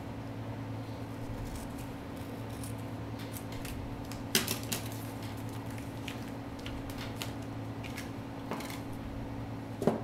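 Scissors snipping through a paper envelope, a series of light sharp clicks, with paper handling between them and two louder clicks, one about four seconds in and one near the end. A steady low hum runs underneath.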